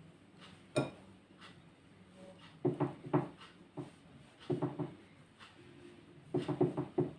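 Kitchen utensil tapping and scraping against a dish while spreading a layer of boiled potato, in a few short bursts, with one sharp click about a second in.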